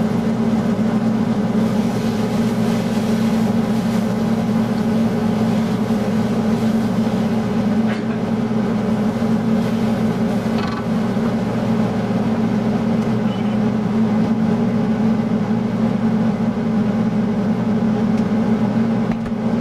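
Kitchen range-hood exhaust fan running with a steady, even hum over a wok on the stove. A couple of faint scrapes of a spatula against the wok about eight and eleven seconds in.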